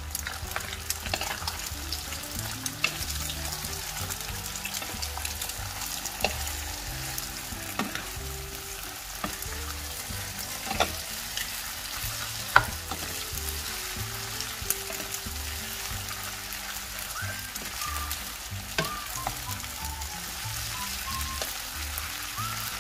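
Wide rice noodles, pork belly and egg sizzling in hot oil in a non-stick frying pan while a wooden spatula stirs and tosses them. The spatula clicks and scrapes against the pan now and then, with a sharper knock a little past halfway.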